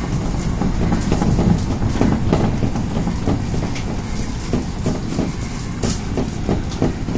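Osaka Municipal Subway 22 series train running at speed, heard from inside the train: a steady rumble of wheels on the rails with short clacks from rail joints scattered through it.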